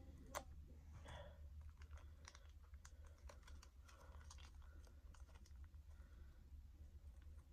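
Faint clicks and small crinkles of a ration cheese pouch being handled while someone struggles to open it, with one sharper click about half a second in. A steady low hum runs underneath.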